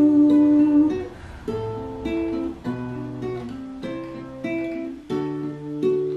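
Acoustic guitar playing the closing bars of a song: a sung note held over the guitar ends about a second in, then the guitar plays plucked chords alone, each one ringing out before the next.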